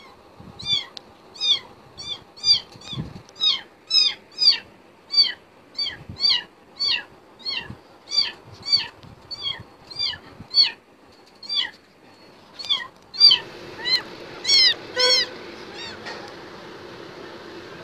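Young kitten meowing over and over, short high-pitched cries about two a second, stopping about fifteen seconds in.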